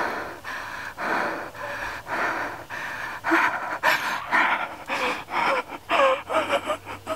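A person panting and gasping hard while running, with quick breaths about two a second. The breaths get faster and voiced near the end, with short whimpering cries.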